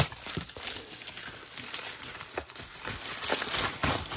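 Packaging crinkling and rustling as a parcel is unwrapped by hand, with a few short sharp taps and knocks.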